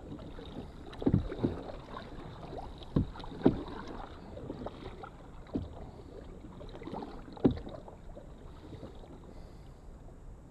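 Canoe being paddled: about six irregular low knocks and thumps from the paddles and hull over steady water noise. The loudest come about a second, three and a half and seven and a half seconds in.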